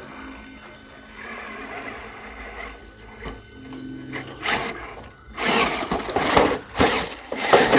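RC rock crawler's electric motor and gears whirring faintly, then loud scrabbling, crunching bursts from about halfway through as the truck claws over dirt and rocks.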